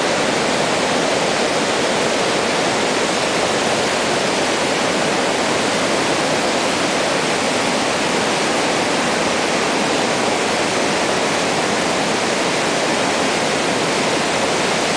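Flooded river rushing in rapids over and around boulders: a steady, loud roar of churning whitewater.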